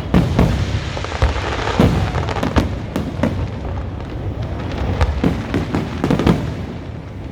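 Aerial fireworks bursting: an irregular run of bangs and deep booms over a low rumble, with a crackling hiss that dies away after about two seconds.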